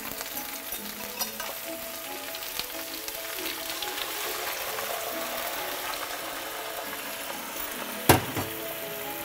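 Vegetables in a hot soup pot sizzling steadily as vegetable stock is poured in, with faint background music. A single sharp knock about eight seconds in, as the glass jug is set down on the counter.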